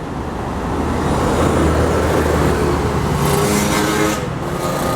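Tour bus engine running as the bus passes close by, building in level over the first second or so, with a brief burst of high noise about three seconds in.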